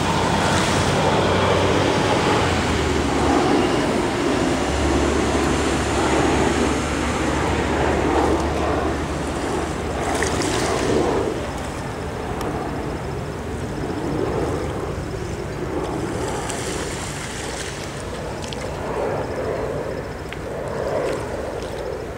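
Wind rushing over the microphone, a steady noise that swells and eases in gusts, with a low steady hum underneath for the first half.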